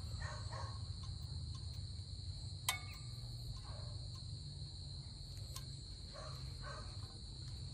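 Crickets chirping in a steady, unbroken trill over a low steady rumble. A single sharp metallic clink comes about two and a half seconds in.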